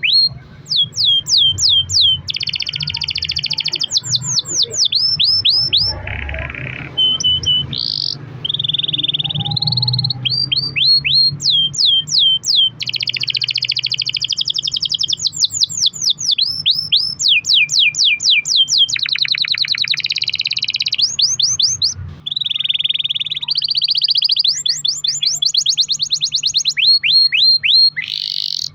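Domestic canary singing a long, continuous song. Runs of quick down-sweeping whistled notes alternate with long buzzy rolls and trills, broken by a few brief pauses.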